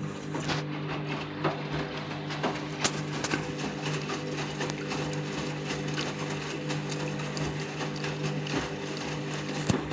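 Candy washing machine's drum motor running with a steady hum while a medium load tumbles in the drum during a deep rinse, with irregular clicks and knocks throughout.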